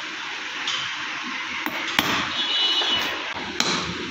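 Hammer striking a steel number punch held against a Fiat 640/480 tractor hydraulic assembly housing, stamping the repair date into the metal: four sharp blows, the loudest about two seconds in and near the end, with a brief metallic ring after the blow at two seconds.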